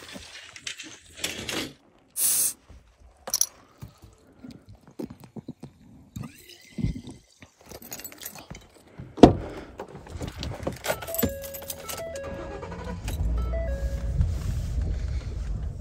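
Keys jangling and clinking while handling the Ford F-150 pickup, with scattered clicks and rattles, then one loud thump of the truck door shutting about nine seconds in. A few short electronic tones follow, and near the end the low, steady rumble of the truck running and moving comes up inside the cab.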